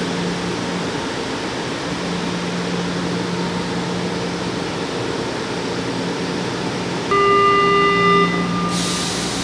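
São Paulo Metro Frota I train standing at the platform with its onboard equipment humming steadily. About seven seconds in, the door-closing warning tone sounds for about a second. Then a sharp hiss of compressed air follows as the doors start to close.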